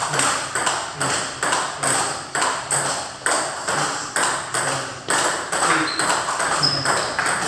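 Table tennis balls clicking off paddles and tables in rallies on two tables, a quick run of hits at about two or three a second, each ringing briefly off the hall's hard walls.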